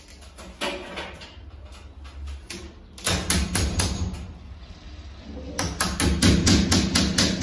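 Hammer tapping a screw with its wall plug into a drilled hole through a cabinet hanging rail into the wall: a few light taps, then from about three seconds in quick runs of strikes, the last and loudest about five a second.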